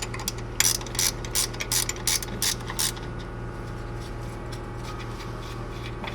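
Ratcheting wrench clicking as it loosens the front shock absorber's mounting bolt, about three clicks a second, stopping about three seconds in; a steady low hum underneath.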